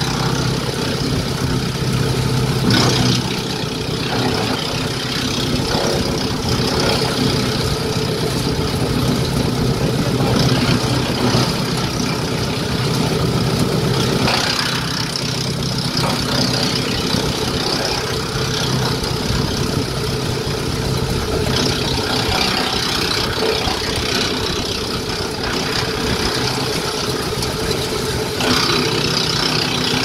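Tractor-driven PTO wood chipper at work: the tractor engine runs steadily under load while the chipper cuts branches. A rough crunching chipping noise rises and falls several times as bundles of brush are fed through the feed rollers.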